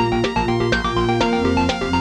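Electronic music: changing melodic notes over a steady beat of about four strikes a second.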